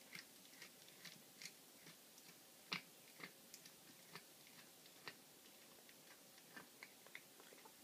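Domestic cat chewing a baby rabbit, crunching through its small bones: faint, irregular crunches and clicks, about two a second, the loudest nearly three seconds in.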